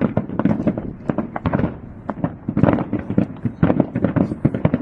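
Fireworks going off in rapid succession: a dense, irregular run of sharp bangs and crackles, several a second, without a pause.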